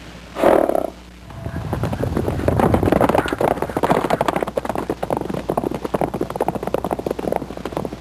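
Horses galloping on dirt: a dense, rapid clatter of hoofbeats that builds up about a second and a half in, after a brief loud burst near the start.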